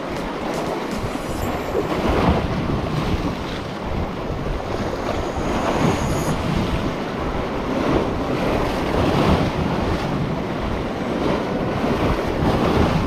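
Sea waves washing and breaking over shoreline rocks, swelling every few seconds, with wind rumbling on the microphone.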